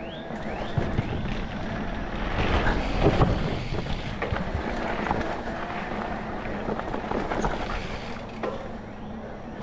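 Mountain bike rolling over a wooden plank bridge, the tyres clattering across the boards loudest about two to three seconds in, then running on over a dirt trail with rattles and knocks from the bumps. Wind noise on the microphone.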